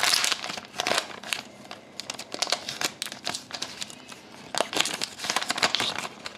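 Foil trading-card pack wrapper being torn open and crinkled by hand, a run of sharp crackles in clusters with short pauses.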